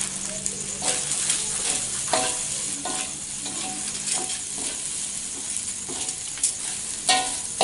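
Fried rice sizzling in a metal wok as it is stir-fried. A metal spatula scrapes and clinks against the wok about once a second, each stroke giving a short metallic ring.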